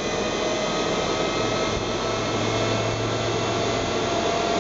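NetGain WarP9 DC electric motor running steadily on the bench under a Soliton1 controller: an even whirring hum with a few faint high tones.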